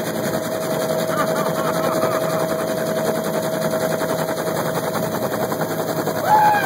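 Helicopter running, heard from aboard the open cabin: a rapid, steady beat of rotor blade slap over a constant engine whine. Voices are faint in the middle and louder near the end.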